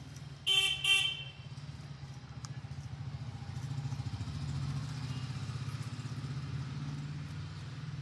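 Two short honks of a vehicle horn about half a second in, over a steady low rumble.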